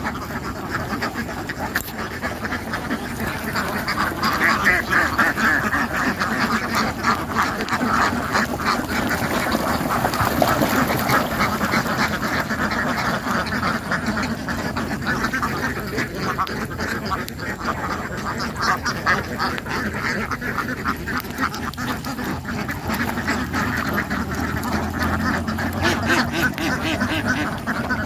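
A large flock of domestic ducks quacking continuously, many calls overlapping into a steady din.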